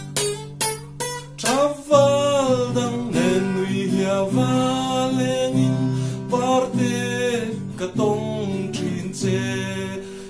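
A man singing while strumming an acoustic guitar. A few short strums open it, then long held sung notes over the chords.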